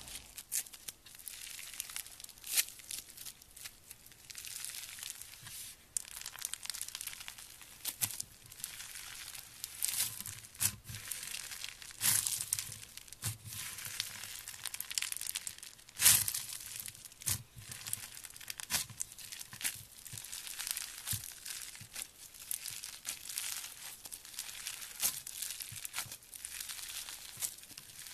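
Crunchy slime being squeezed and worked by hand: a dense, irregular stream of small crackles and pops, with a few louder snaps, the loudest about sixteen seconds in.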